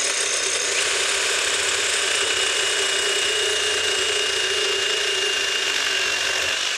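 Reciprocating saw with a Diablo carbide blade cutting through a thick steel exhaust flange, running steadily with a high whine, then stopping suddenly at the end as the flange parts in two.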